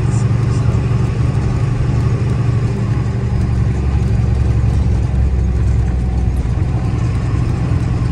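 Diesel truck engine running while driving, heard from inside the cab: a low, even drone.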